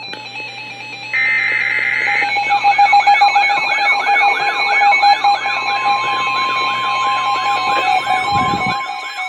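Emergency Alert System alert for a flash flood warning from weather radio equipment. A short burst of data tones comes about a second in, then a warbling siren-style alarm repeats about three times a second over steady alert tones. A low thud comes near the end.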